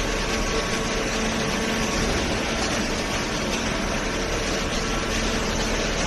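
Hydraulic baling press running steadily: an even mechanical drone with a faint steady hum from its motor and pump.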